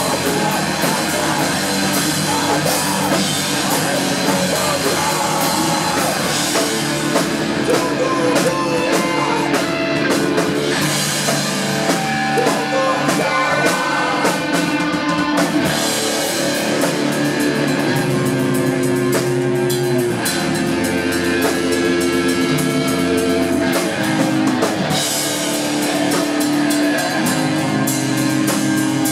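Hardcore punk band playing live: electric guitar, bass and a drum kit, with a singer on the microphone.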